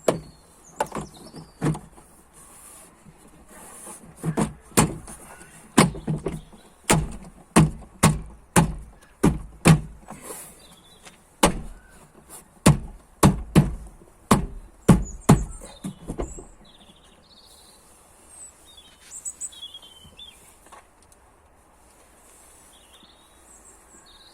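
A series of about two dozen sharp knocks and thumps, coming irregularly one to two a second, as a car's tailgate trim panel is pressed and knocked back into place, its clips pushing home; they stop after about sixteen seconds.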